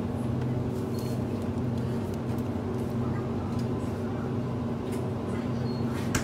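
Steady low hum of refrigerated drink cases in a convenience store, with a few light clicks of bottles being handled and a sharper click near the end.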